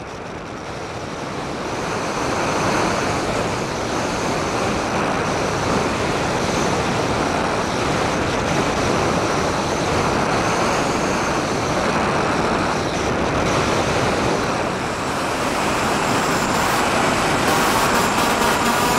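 Steady wind rush with a faint, wavering high motor whine, heard from the onboard camera of a Sky Surfer RC plane in flight. The noise swells over the first couple of seconds and then holds.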